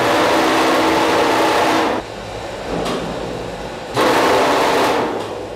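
A machine motor with a loud hiss switching on in two bursts of about two seconds each, one at the start and one about four seconds in, with a lower hum between them.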